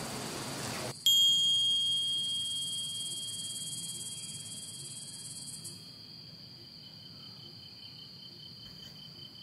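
A bright, high-pitched chime sounds about a second in and rings on, fading slowly over several seconds. A faint high tone is still lingering near the end.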